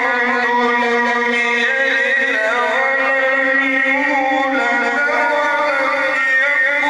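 A male qari's voice reciting the Quran in Arabic in the melodic, ornamented style, holding long notes with slow turns in pitch, amplified through a microphone.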